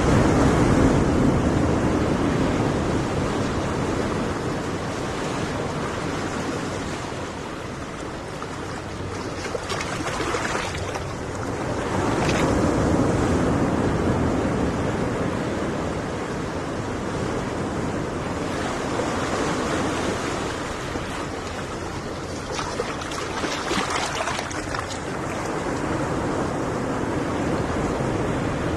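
Ocean surf: waves breaking and washing in continuously, swelling and easing every few seconds, with some wind on the microphone.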